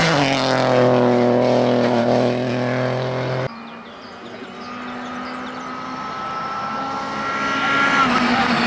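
Peugeot 208 Rally4's turbo three-cylinder engine at full throttle as it passes close by, its note dropping slightly as it goes past. It cuts off suddenly about three and a half seconds in. Then a Citroën C3 Rally2's turbo four-cylinder engine approaches, growing louder with a slowly rising note.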